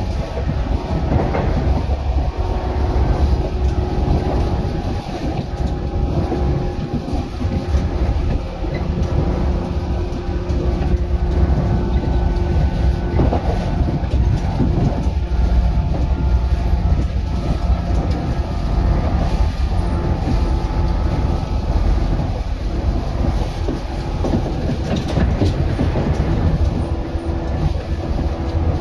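JR 115 series electric multiple unit running at speed: a steady rumble and drone, with wheels knocking over rail joints now and then.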